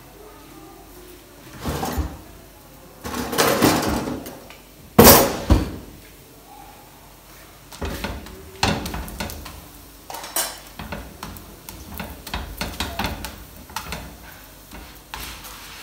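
A slotted spatula clattering and scraping on a flat tawa griddle as a paratha is pressed and turned. There are a few louder clatters in the first six seconds, the loudest about five seconds in, then a run of short scrapes.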